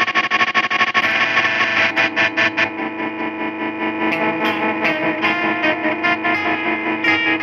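Fender Jazzmaster electric guitar played through effects pedals into a Fender Vibrolux amp: a noisy, heavily processed texture. A rapid stutter changes about a second in to held, warbling notes broken by choppy pulses.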